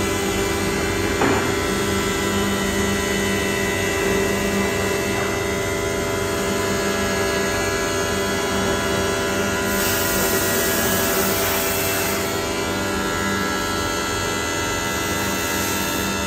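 CNC wood router running, its HSD spindle and C-axis aggregate head spinning at about 18,000 rpm, giving a steady whine over a hum. About ten seconds in, a hissing stretch of roughly two seconds rises over it.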